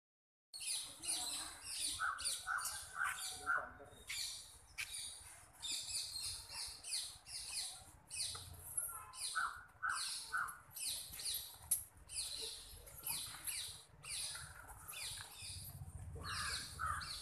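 Birds calling: a near-continuous run of short, high, scratchy calls, several a second.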